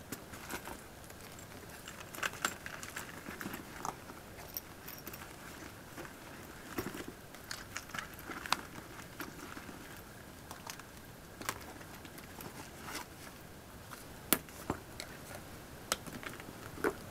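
A handbag being packed by hand: rustling of pouches and cases going in, with scattered sharp clicks and taps from the bag's metal handles and clasp. The loudest click comes a little past the middle.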